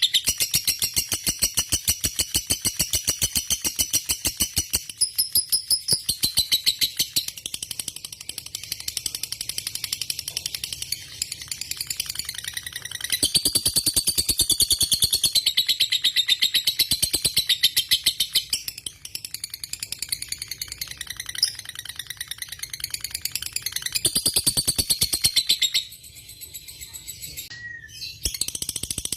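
Lovebird singing a long, unbroken run of fast, high chattering notes, the long-duration song prized in fighter lovebirds. It swells louder in stretches and drops off briefly near the end before picking up again.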